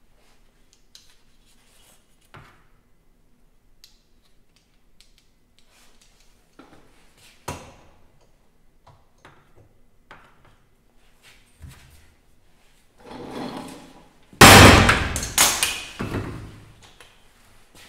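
Sledgehammer striking a hammer-type crimping tool to crimp a connector onto a battery cable: several very loud blows in quick succession a few seconds before the end, after quiet clicks and knocks of tools being handled on the workbench.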